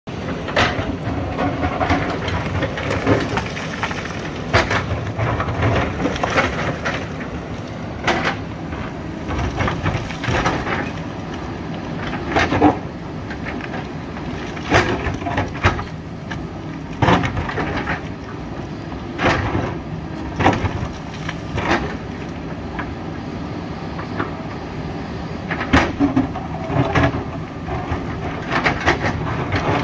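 JCB 3DX backhoe loader's diesel engine running steadily under load, with sharp cracks and knocks every second or two as the bucket strikes and breaks rock.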